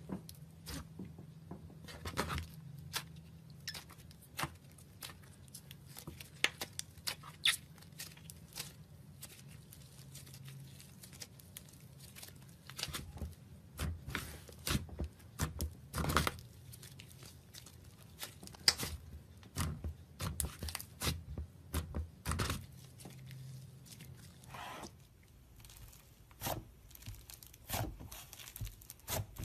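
Slime being pressed, squeezed and kneaded by hand, giving irregular sticky clicks, pops and crackles.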